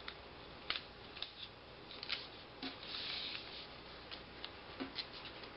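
Paper and tape being handled and pressed down on a folded paper airplane wing on a tabletop: irregular light crinkles and taps, with a short rustle about three seconds in.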